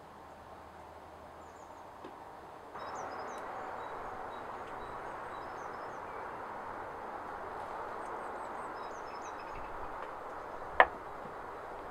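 Small birds chirping over a steady outdoor hiss. Near the end comes a single sharp knock of a steel rod against a wooden plank.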